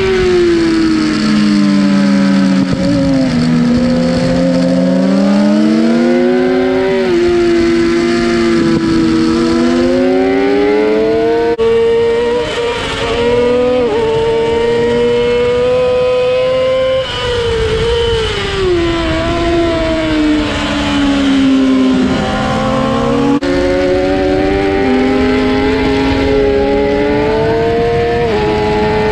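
Onboard sound of 600cc inline-four racing motorcycles at race pace, a Suzuki GSX-R600 and a Yamaha R6. The engine note climbs and falls with gear changes and braking over wind rush, and it switches abruptly between the two bikes a few times.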